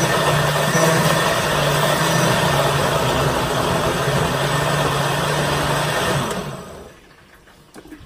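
Countertop blender motor running steadily as it purées tomatoes, then switched off about six seconds in, its hum falling in pitch as the motor winds down to a stop. A few faint knocks follow near the end as the jar is lifted off the base.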